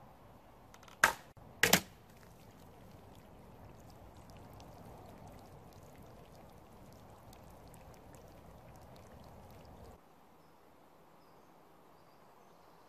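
Homemade wooden crossbow shot: two sharp cracks about two-thirds of a second apart, the release and the bolt striking a water-filled plastic bottle. Water then runs out of the pierced bottle for several seconds before cutting off abruptly.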